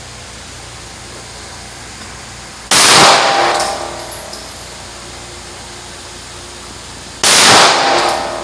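Two shots from a Glock 45 9mm pistol, about two and a half and seven seconds in, each loud crack trailing off over about a second.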